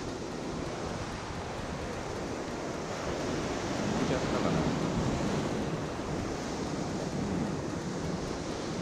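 Sea swell breaking and washing over the shore rocks, with wind buffeting the microphone. The surge grows louder about halfway through, then eases.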